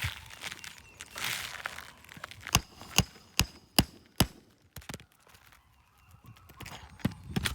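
A hammer driving a roofing nail through an asphalt shingle: five quick, ringing blows about 0.4 s apart, after a brief rustle of the lifted shingle being handled.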